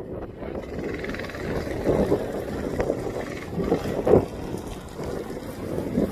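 A Coleman CT100U mini bike and a 110cc pit bike accelerating in a drag race, their small engines running under heavy wind noise on the microphone.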